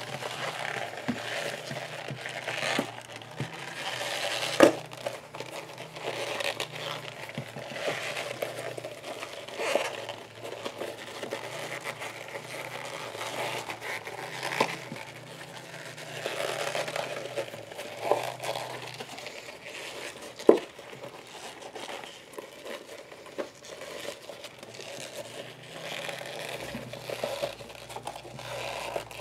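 Soft leather bag being worked and turned right side out by hand: continuous crinkling and rustling of the leather, with a couple of sharp clicks, about five seconds in and again near twenty seconds.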